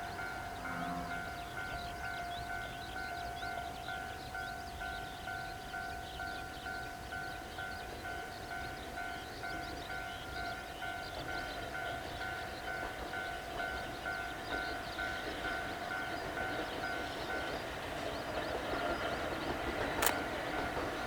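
Railway level-crossing alarm ringing in an even beat, about twice a second, with an Ohmi Railway train running under it and growing louder near the end. The alarm's beat stops about three seconds before the end, and there is a single sharp click shortly after.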